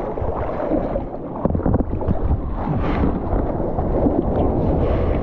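Wind buffeting the microphone with rushing, splashing water, getting louder about a second and a half in.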